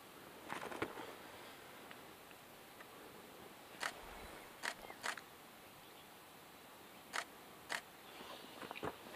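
Faint rustle of a northern raven's wings as it hops across the rock, about half a second in, followed by five sharp, isolated clicks spread over the next few seconds.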